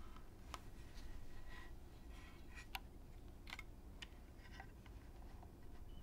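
Mechanical keyboard being handled and flipped over on a felt desk mat: a scatter of faint clicks and light knocks from the case and keycaps, with one sharper click about halfway through.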